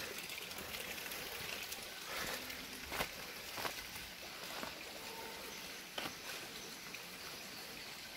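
Faint steady rush of running water at the fish ponds, with a few soft knocks about three and six seconds in.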